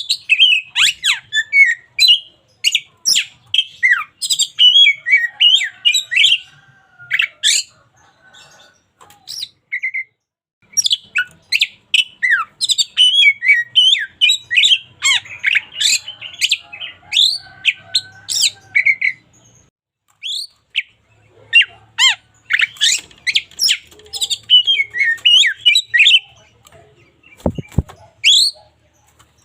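Oriental magpie-robin singing in fast, loud bouts of sharp high chirps, whistled sweeps and squawky notes, with short pauses about eight and twenty seconds in. A brief low knock comes near the end.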